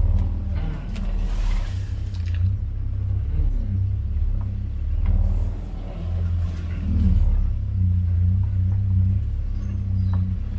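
Motor vehicle engine running at low revs as it drives, its pitch rising and falling slightly, with scattered light rattles and knocks from the vehicle.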